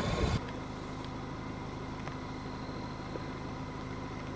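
Vehicle engine idling steadily with an even low hum. The sound drops to a quieter, unchanging idle about half a second in.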